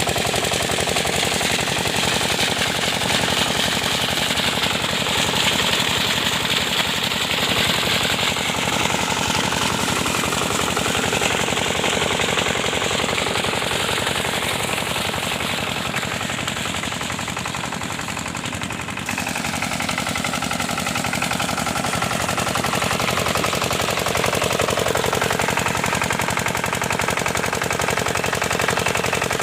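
Water pump engine running steadily, with a rapid, continuous knocking beat.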